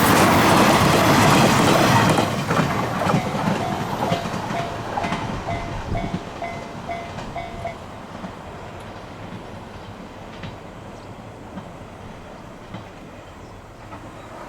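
A train on the Hakubi Line passing over a level crossing. It is loud for the first two seconds, with wheels clacking over the rail joints, then fades steadily as it moves away. The crossing's warning bell dings about twice a second and stops about seven and a half seconds in.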